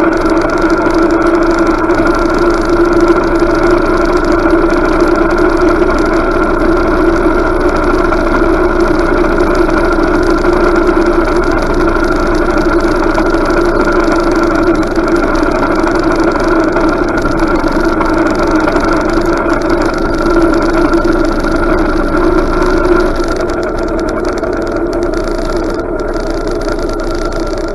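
Motorcycle engine running steadily at low speed, heard from a camera mounted on the bike. It eases off a little near the end.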